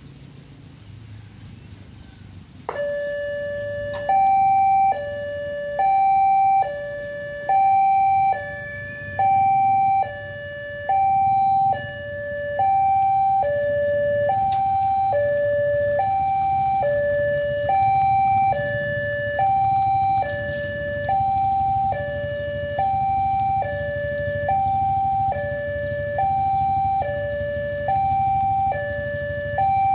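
Railway level-crossing warning alarm: an electronic two-tone signal switching back and forth between a lower and a higher note, each held just under a second, starting suddenly about three seconds in. It warns road users that a train is approaching and the barriers are closing.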